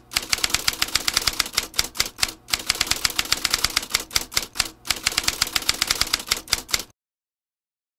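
Typewriter sound effect: rapid keystroke clacks in short runs with brief pauses, stopping about seven seconds in.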